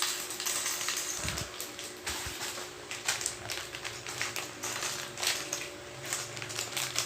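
Plastic parts bags of a building-block set being handled and cut open: crinkling plastic and small plastic bricks clicking and clattering, on and off throughout.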